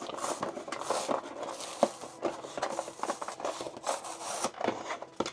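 Cardboard box and plastic packaging being handled and slid apart: continuous irregular rubbing and scraping with many small clicks.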